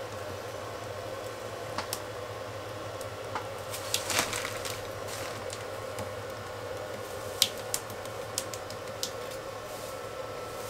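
Light, sharp clicks and taps, a few at a time and irregularly spaced, from a hand tool worked against a resin pot and worktop, over a steady hum.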